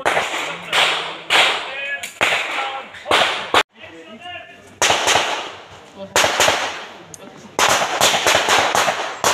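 Pistol shots in a practical shooting course of fire: single sharp reports at uneven intervals, each with a short echo, then a quicker string of several shots near the end.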